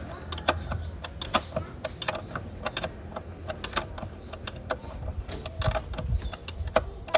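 Irregular sharp metallic clicks and ticks of a hand tool working a bolt and fitting beside the engine's air-cleaner box, a few per second and sometimes in quick clusters, over a steady low hum.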